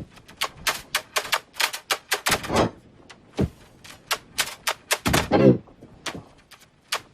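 Tin wind-up hopping parrot toy clattering across a table, its clockwork hops giving a fast, irregular run of sharp metallic clicks. A short voice-like sound comes about five seconds in.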